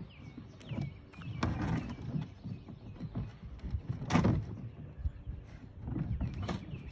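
Knocks and clacks of a TuckTec folding kayak's hull and latch levers being worked into place, with handling rustle between them. A few separate knocks, the loudest about four seconds in.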